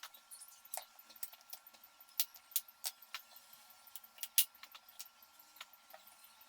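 Irregular sharp clicks and taps of hands-on kitchen work, about a dozen spread unevenly, over a faint steady high hum.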